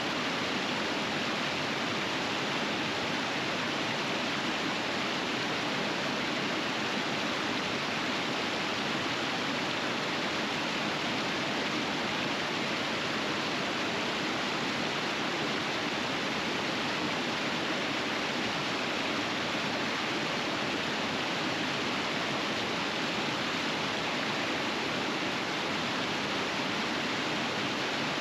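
River rapids flowing steadily: an even, unbroken rush of water.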